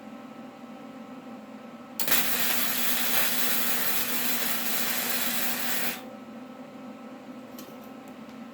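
Electric welding arc sizzling for about four seconds as a tack weld goes onto steel angle iron, starting abruptly about two seconds in and cutting off just as suddenly. A steady hum runs underneath, and a few faint ticks follow near the end.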